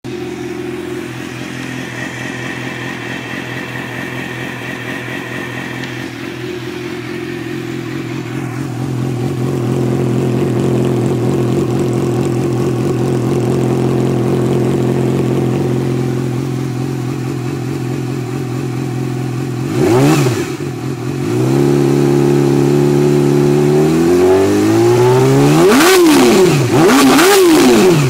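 Yamaha R6 inline-four engine running through a replica M4 GP-style aftermarket muffler: a steady idle for about twenty seconds, one quick rev blip, a raised idle, then several sharp throttle blips near the end.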